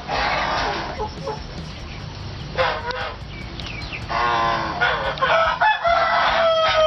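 Farmyard fowl calling: loud squawks and cackles from about two and a half seconds in, ending in one long drawn-out call near the end.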